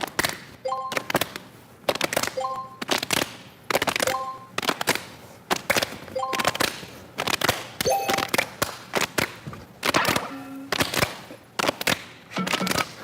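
Hands clapping and slapping in a fast, uneven rhythm during a clapping game, many sharp smacks in quick succession, with a few short beeping tones in between.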